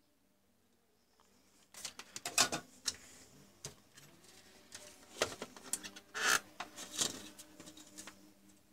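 Small handling noises on a workbench: irregular clicks, scrapes and rustles as wires and a plastic reel of LED strip are moved about. It starts after a near-silent second or two, and the two loudest clicks come a few seconds apart.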